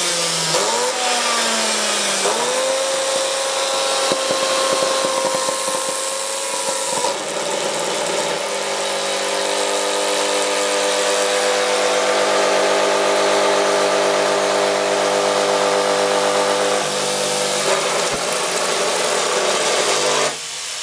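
Maktec chop saw's universal motor, its armature shorted on several poles, running on full mains power and burning out. It spins up with a rising whine over the first two seconds, then runs at a steady scream over a harsh hiss from the arcing commutator. A deeper hum joins about eight seconds in, and the sound drops sharply near the end.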